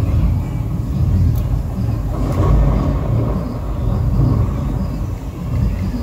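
Simulated indoor thunderstorm effect: a loud, deep thunder rumble from loudspeakers that swells and eases several times.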